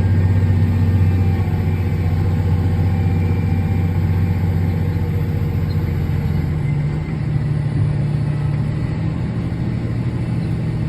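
Farm harvest machine's engine running steadily, its low hum shifting in pitch about seven seconds in.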